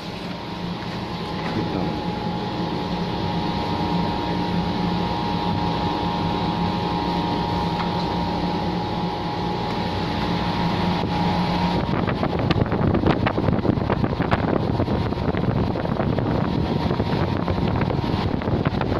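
Swimming-pool heat pump running: a steady machine hum with its fan, holding low and mid-pitched tones. About twelve seconds in the steady tones drop away and rough, gusty wind noise on the microphone takes over.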